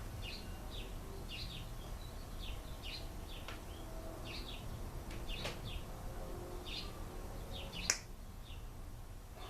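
A small bird chirping over and over in short, high chirps, about two a second. A single sharp click comes near the end.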